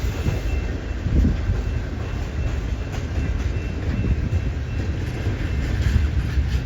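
Diesel-hauled freight train rolling slowly past, a steady low rumble of locomotives and wheels on the rails.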